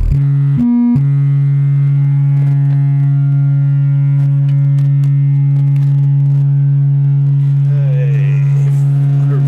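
A steady test tone of about 140 Hz from a signal generator, played through the repaired Buttkicker BKA1000-4A amplifier during its frequency test. It jumps briefly to a higher tone just under a second in, then returns to the same steady pitch.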